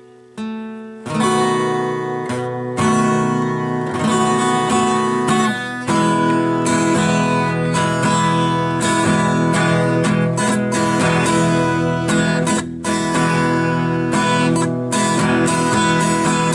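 Acoustic guitar being strummed. A single note sounds just after the start, then chords run on from about a second in with short breaks between them.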